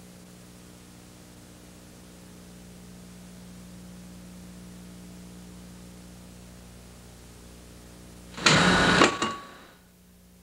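Steady low hum and hiss of an old video recording, broken about eight and a half seconds in by a loud burst of noise lasting under a second, with a shorter second burst right after.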